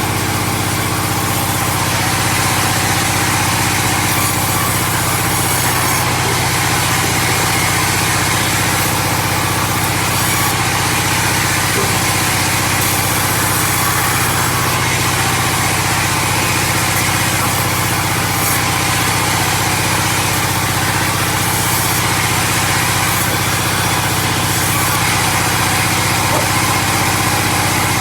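An engine running steadily at constant speed, with a dense hiss above its low drone and no change in pitch or load.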